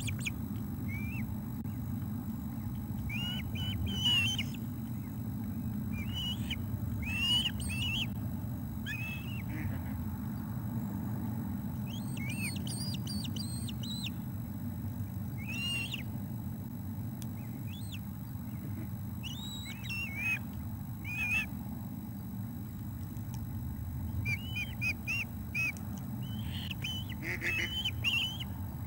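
Ospreys calling at their nest: short bouts of high, chirping whistles that come every few seconds, over a steady low rumble.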